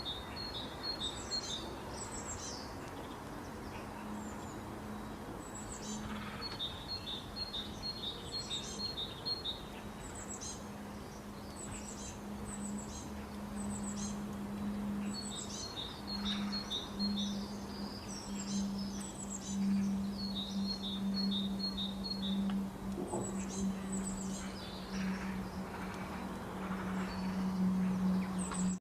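Wild birds singing and chirping: rapid series of short high notes repeated every few seconds, mixed with quick falling high chirps. A steady low hum runs underneath.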